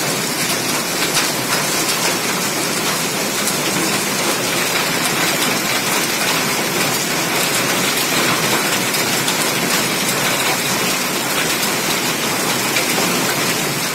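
Heavy rain mixed with hail, falling steadily as a dense hiss full of small pattering hits.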